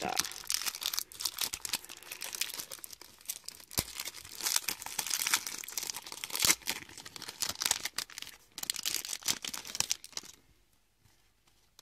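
Foil wrapper of a Topps Slam Attax trading-card booster pack being torn open and crinkled by hand, crackling and rustling for about ten seconds before going quiet near the end.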